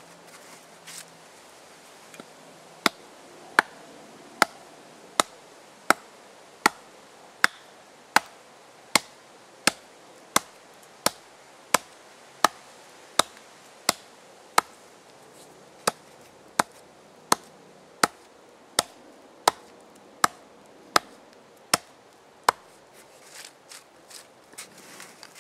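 Wetterlings axe chopping into the top of a wood round, a steady run of sharp strikes about every three-quarters of a second, chipping out the hollow that will be burned out into a bowl. Near the end the strikes stop and give way to softer brushing as a hand clears the chips.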